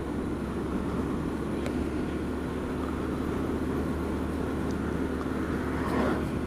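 Honda Z125 Monkey's single-cylinder four-stroke engine running steadily at road speed, under a haze of wind and road noise.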